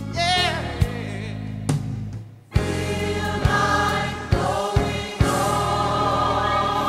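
Gospel music with choir singing. It drops away briefly about two and a half seconds in, then returns with fuller, sustained chords.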